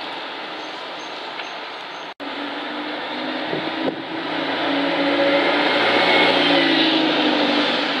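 Stagecoach single-deck diesel bus driving past. Its engine note builds from about three seconds in and is loudest as it passes close, over a steady background hiss. The sound drops out for an instant about two seconds in.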